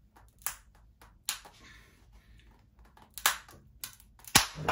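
A handful of scattered sharp clicks and knocks from hands gripping and straining a glued paulownia wood board bent over a knee, the loudest near the end.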